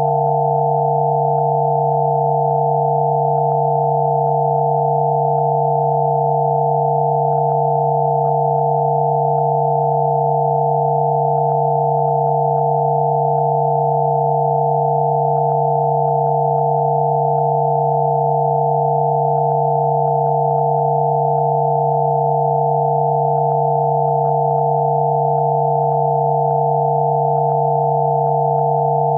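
Electronically generated Rife frequency tones: several pure tones sounding together, a low hum under a cluster of higher tones, held perfectly steady without any change.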